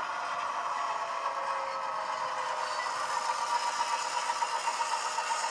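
Sound decoder in an Irish 181 class model diesel locomotive playing its engine sound through a small 30x17 mm speaker as the model runs hauling wagons. The engine note is steady at first, then takes on a quick, regular pulsing from about three seconds in.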